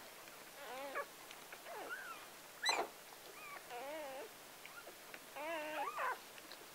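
Newborn Gordon Setter puppies crying: a series of short, wavering whimpers and squeals, with one sharp, louder squeak a little under three seconds in.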